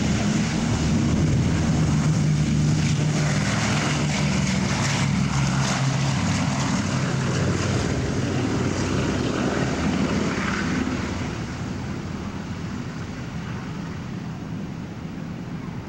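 Four Wright R-1820 Cyclone radial engines of a B-17 Flying Fortress at full takeoff power: a deep, steady propeller drone as the bomber rolls and lifts off. It fades after about eleven seconds as the aircraft climbs away.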